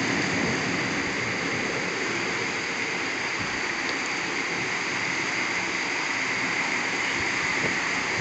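Torrential rain pouring down in a steady, even rush, with no breaks or single events standing out.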